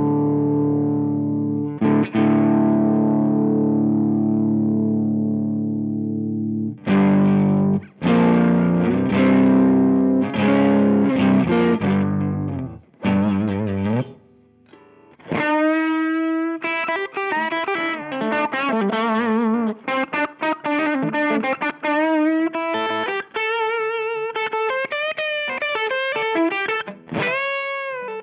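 Electric guitar played through a Chevtone Messiah Drive British-style overdrive pedal. Two distorted chords are struck and left to ring, then choppy chord stabs follow. After a short pause comes a single-note lead line with bends and vibrato.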